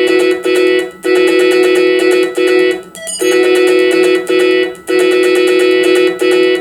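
FM-synthesised music from a Commodore 64 SFX Sound Expander playing a General MIDI patch: a chord repeated in a steady rhythm, each held for about half a second to a second with short breaks between.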